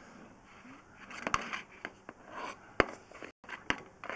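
Irregular clicks and knocks with faint scraping as a drain inspection camera's push rod is fed further along the pipe.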